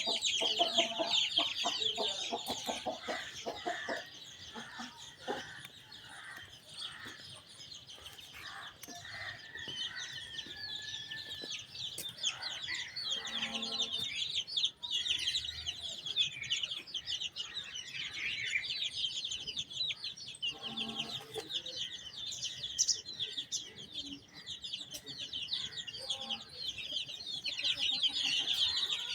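Brood of chicks peeping continuously in a dense high chirping, with an Aseel hen clucking now and then, most clearly near the start and at about 13 and 21 seconds in.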